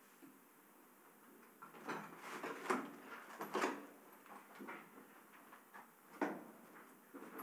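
Scattered knocks, scrapes and rustles of something being moved or handled, bunched together about two seconds in, with one more sharp knock about six seconds in.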